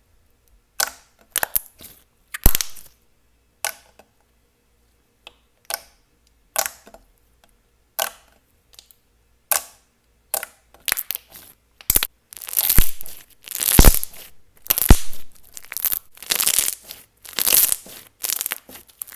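Slime being handled. For the first twelve seconds there are sparse, sharp sticky clicks and pops, then a quick run of louder crackling, tearing sounds for the last seven seconds as it is stretched and pressed.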